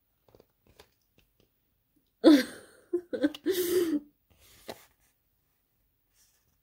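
A woman laughing in a few short bursts, starting about two seconds in.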